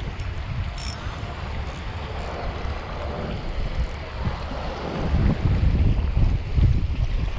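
Wind buffeting the microphone in gusts over sea waves washing around shoreline rocks; the gusts grow stronger from about five seconds in.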